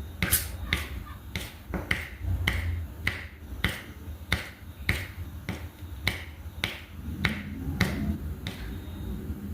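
Diamond painting pen tapping resin drills down onto the sticky canvas one after another: crisp little clicks about twice a second, over a low hum.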